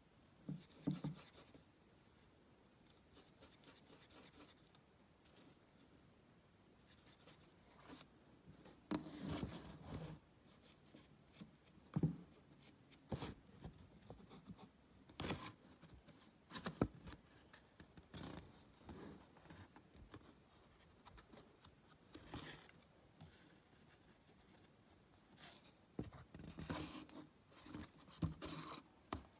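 Fingers rubbing and pressing modelling clay on a cardboard base: short, irregular scratching and rubbing noises with a few sharp taps, quiet in between.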